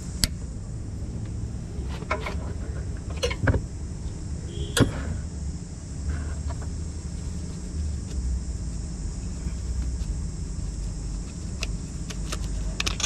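Scattered sharp clicks and light knocks from the steering rack boot's clamp and clip being worked by hand, a few close together about three to five seconds in and more near the end, over a steady low rumble.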